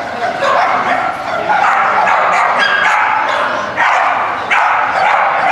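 A dog barking repeatedly in high yips, about one or two barks a second.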